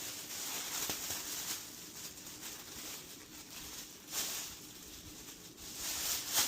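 Soft rustling and light handling noises from a soldering helping-hands stand being set up, with a few short scrapes and knocks spread through.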